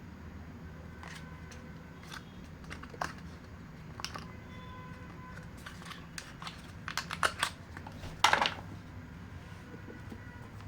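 Hands handling earbud packaging: scattered clicks and short crinkling rustles, busiest near the end, over a steady low hum.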